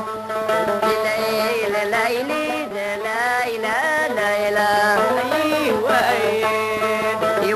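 Traditional Amazigh music of the Souss: a melody of sliding, ornamented notes over a steady low drone.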